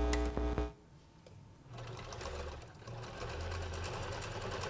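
Electric domestic sewing machine stitching: the motor starts about two seconds in and runs with a fast, even needle rhythm, briefly pausing once before running on. A steady hum cuts off within the first second.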